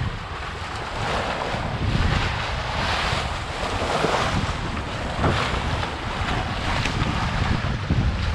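Sea water rushing and splashing along the hull of a Contessa 26 sailboat under way, surging louder and softer as waves pass, with wind buffeting the microphone.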